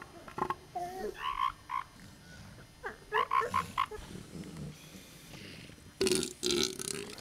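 Northern elephant seals calling: several short croaking bursts of rapid pulses, the loudest near the end.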